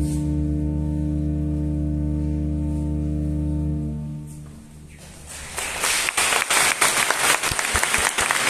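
Church organ holding a final chord that is released about four seconds in and dies away in the church's reverberation. An audience then breaks into applause that grows loud.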